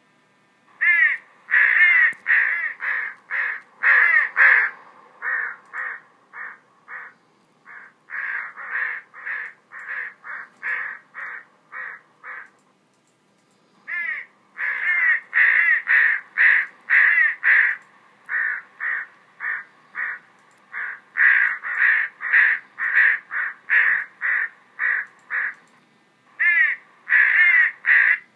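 Recorded crow calls played through the speaker of an electronic bird caller: a rapid series of caws, two or three a second, with a pause about halfway through and another near the end.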